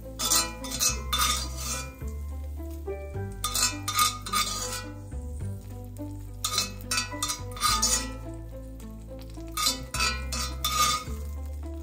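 Background music with a bass line that steps from note to note every second or two, and light, clicking percussion.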